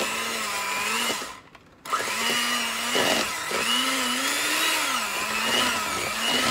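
Electric hand mixer beating softened butter and cream cheese together. It cuts off about a second in and starts again just before two seconds, its motor pitch wavering as the beaters meet the load.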